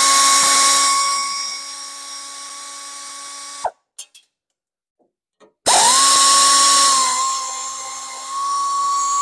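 Handheld power tool with a 10 mm socket spinning out engine shroud bolts: two runs of a steady motor whine, each a few seconds long and getting quieter partway through, with a short pause between.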